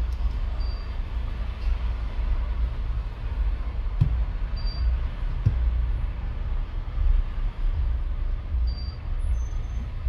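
A steady low rumble of background noise, with two light taps about four and five and a half seconds in.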